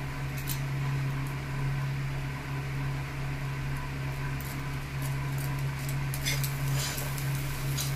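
A steady low mechanical hum, with a few light clinks and scrapes of a steel spoon and spatula against an aluminium kadai as spice powder is mixed into the stuffing, mostly about six to seven seconds in.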